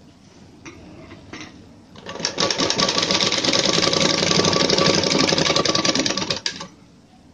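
Sewing machine stitching a seam along a strip of fabric. It starts about two seconds in, runs fast and steady with a rapid stitch rhythm for about four and a half seconds, and stops abruptly near the end. A few faint handling clicks come before it.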